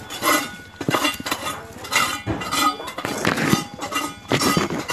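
Metal hand tool scraping and clinking against a concrete tomb in short, irregular strokes.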